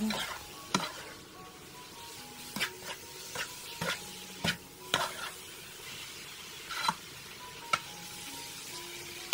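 A spoon stirring and scraping chopped vegetables and spices around a nonstick frying pan, in irregular strokes, over a steady sizzle of the vegetables frying in oil.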